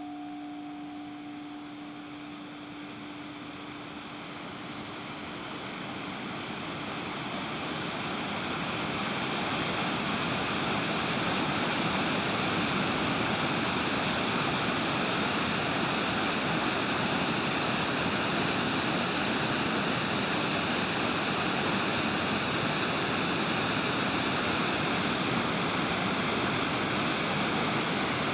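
A steady rushing noise, like running water or filtered noise with a faint ringing, swells up over the first ten seconds and then holds, while two held tones left over from before fade away in the first few seconds.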